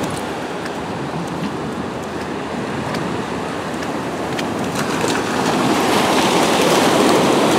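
Ocean surf washing up onto a sandy beach: a steady rushing that grows louder about five seconds in.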